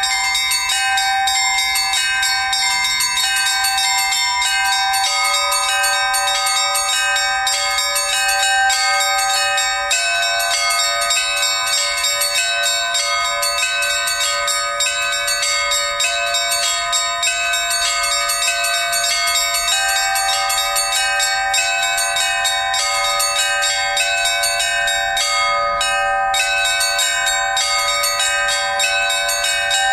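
Orthodox church bells rung in a continuous fast peal: many rapid strikes on the small bells over the sustained ringing of the larger ones. The mix of pitches shifts every few seconds.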